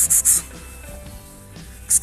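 Background music with steady held tones, cut across by a run of rapid, evenly spaced high scratchy pulses, about eight a second, at the start and again at the very end.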